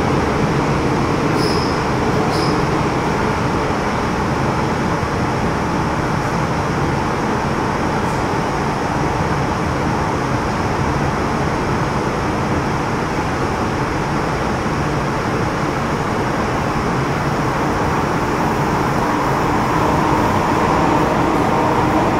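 Metro Cammell M-Train EMU with GEC GTO chopper traction, heard from inside the car while running between stations: a steady rumble of wheels and motors. Two brief high squeaks come about a second and a half and two and a half seconds in, and a whine near the end grows louder.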